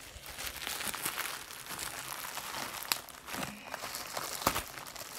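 Plastic poly mailer bag crinkling as it is handled and pulled at to get it open, with sharp crackles about three and four and a half seconds in.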